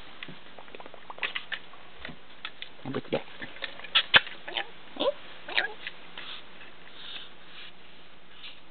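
Pet lorikeet giving short squeaky chirps and chatter, mixed with scattered clicks and taps; the sharpest click comes about four seconds in.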